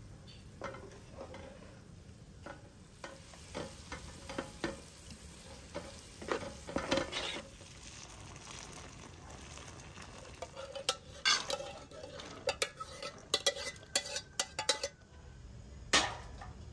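Cooking-pot and utensil sounds: a run of clinks and knocks from metal pans and a spoon, with a short stretch of liquid being poured partway through. Near the end comes one sharp knock as an enamel pot is set down on a stove.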